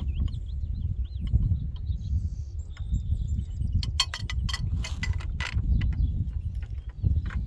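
A quick run of sharp metallic clicks and knocks about halfway through, the sound of hand work on steel parts, over a steady low rumble like wind on the microphone, with small birds chirping now and then.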